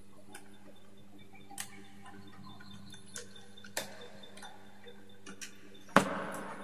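Scattered light clicks and ticks of stiff insulated copper wires and plastic junction-box fittings being handled on a wooden board, over a faint steady hum. About six seconds in comes one louder knock with a short ring, as a screwdriver is set down on the board.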